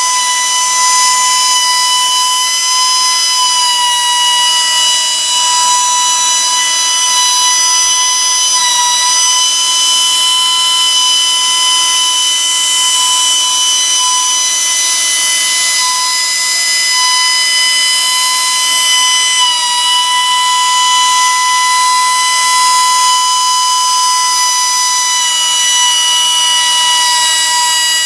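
Electric valve grinder running steadily, its motor giving a continuous high-pitched whine with a slight waver in pitch as it grinds.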